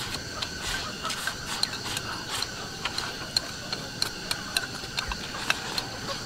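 Wooden chopsticks tapping and scraping against a ceramic bowl as rice is shovelled from its rim into the mouth: a run of quick, irregular clicks.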